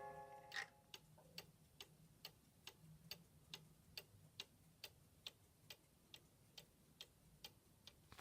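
Cuckoo clock ticking steadily, a bit over two ticks a second, after the last notes of its tune die away at the start.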